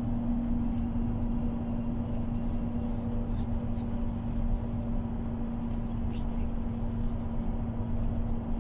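Inside a MAN Lion's City Ü bus with its drivetrain running: a steady low rumble with a constant hum, and light ticks and rattles from the cabin fittings.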